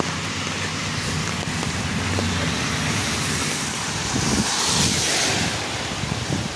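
Street traffic on a wet road, a steady hiss of tyres on water, swelling as a car passes close about four to five seconds in.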